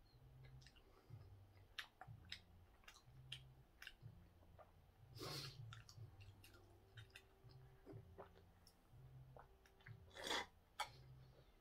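Faint mouth sounds of a person sipping from a small drink carton: small wet clicks and swallows, with two short louder sucking noises about five and ten seconds in.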